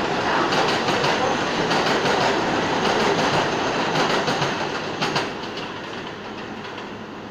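Subway train running on a nearby track, its wheels clattering over the rail joints, fading away about five seconds in and leaving a quieter steady hum.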